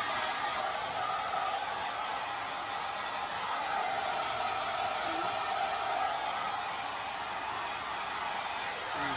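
Hand-held hair dryer running steadily: a constant rush of air with a steady whine.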